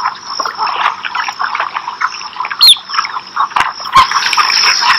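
Wetland ambience: a dense chorus of many small calling animals, with a steady high trill running through it and a short falling whistle about two and a half seconds in.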